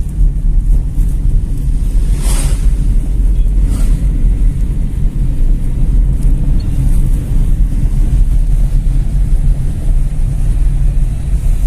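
Moving car heard from inside the cabin: a steady, loud low rumble of engine and road noise, with wind buffeting the microphone. A brief whoosh about two seconds in.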